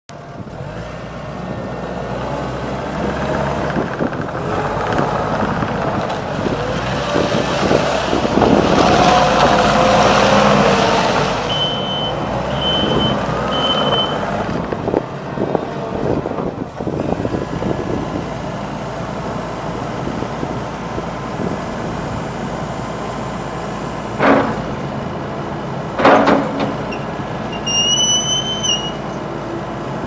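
Kubota SVL90-2 compact track loader's diesel engine running and revving as the machine drives on its tracks, loudest a third of the way in. Three short beeps come about halfway through, then two sharp clunks and a brief high squeal near the end.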